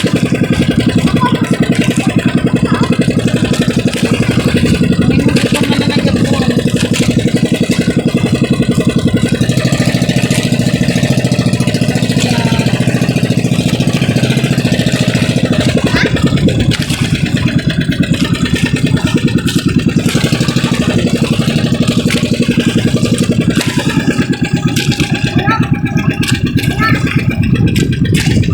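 Motorised outrigger boat's (pambot's) inboard engine running steadily under way, a fast, even putter, easing slightly in level a little past halfway.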